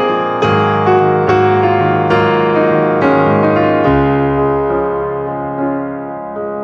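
Background piano music: notes and chords struck every half second or so, then a chord held and fading from about four seconds in.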